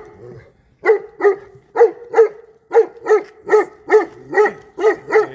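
A dog barking repeatedly in a steady rhythm, about two to three barks a second, starting about a second in.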